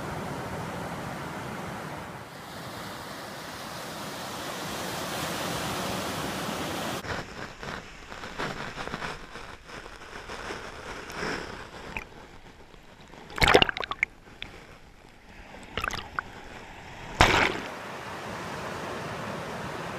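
Ocean surf washing onto a sandy beach, a steady wash of breaking waves. Midway the sound turns uneven, and near the end two loud blasts of noise hit the microphone about three and a half seconds apart.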